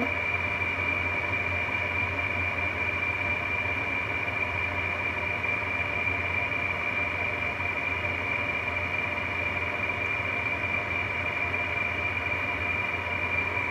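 2003 Frigidaire window air conditioner running on high: a steady blower and fan noise with a constant high-pitched whine over a low hum. The owner puts the noise down to the fan motor's worn-out bearings.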